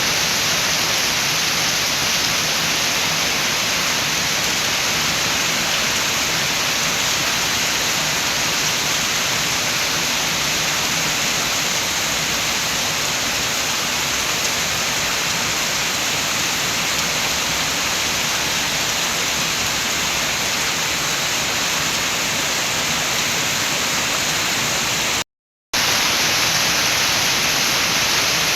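Steady rain with wind, an even hiss with no single drops or gusts standing out. It cuts out for a split second near the end, then resumes.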